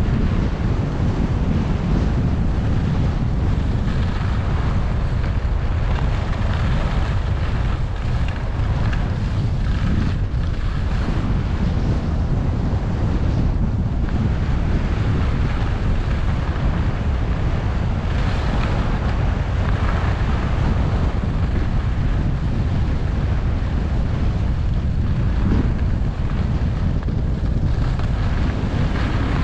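Wind rushing over the microphone of a camera carried by a moving skier, a steady heavy rumble, with the hiss and scrape of skis sliding and turning on packed groomed snow.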